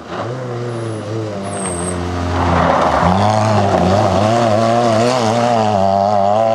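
Suzuki Swift rally car's engine revving hard through a loose gravel corner, its pitch rising and falling as it slides. It gets louder about two and a half seconds in, with a burst of gravel spray as the car powers out of the slide.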